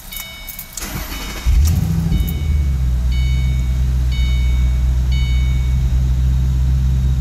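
Ford Mustang GT's 4.6-litre V8 starting about a second and a half in and settling into a steady idle, with a dashboard warning chime ringing about once a second for the first five seconds. The engine is running on its stock tune with a new cold air intake fitted and not yet reprogrammed for it.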